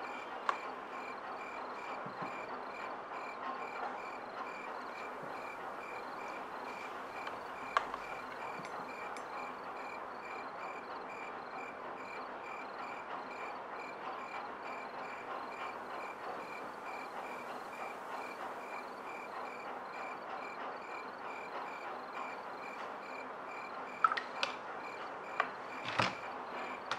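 Crickets chirping in a steady, even pulse. A few sharp taps are heard, most of them clustered near the end.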